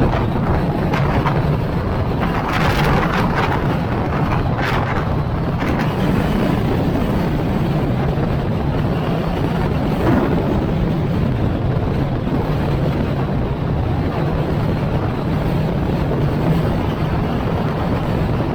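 Wind buffeting the microphone over the steady drone of a car driving along the road, with a few brief louder gusts in the first half.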